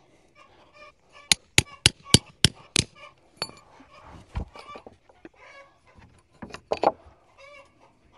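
A hammer striking, six quick blows about a third of a second apart, then two more near the end. Chickens cluck throughout.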